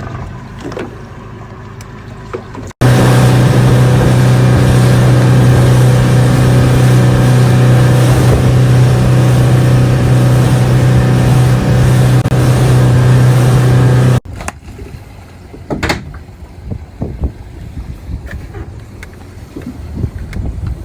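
Boat engine running steadily at constant speed, very loud and close, cutting in abruptly about three seconds in and cutting off abruptly about eleven seconds later. Before and after it, quieter boat and wind noise with scattered knocks.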